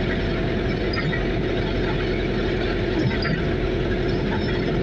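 Vehicle engine running steadily, with road noise, heard from inside the cabin while driving.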